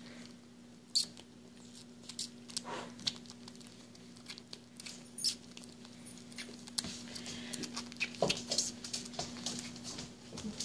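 Baby squirrel, about six to seven weeks old, suckling from a feeding bottle's nipple: irregular soft clicks and smacks of sucking, a few a second, over a steady low hum.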